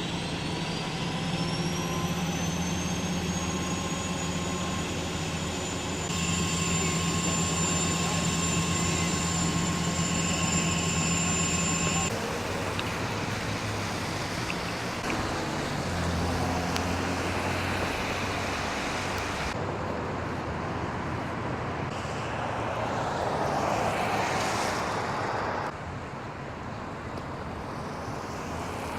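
A steady engine running with a low hum and a high whine that rises over the first two seconds, then holds steady. The sound changes abruptly several times, with shifts in the background noise.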